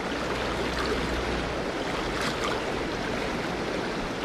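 Fast, shallow river riffle rushing steadily over a rocky bed, an even hiss of moving water.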